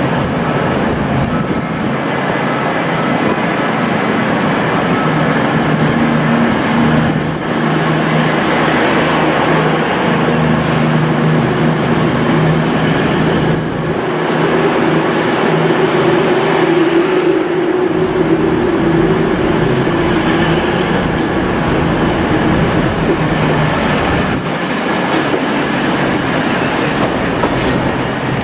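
A train running along the track, loud and steady, with wheel noise on the rails and a low drone that grows stronger partway through.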